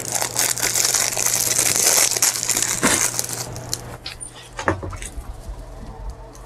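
Packaging wrapper crinkling and crackling as it is handled and opened, dense for the first three seconds or so, then a few scattered crackles.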